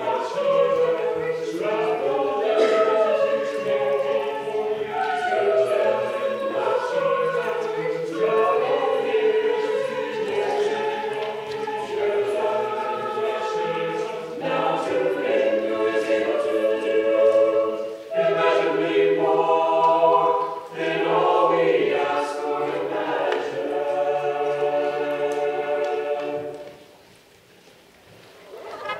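A choir singing in harmony, several voices holding long notes, with no instruments apparent. The singing stops about two and a half seconds before the end.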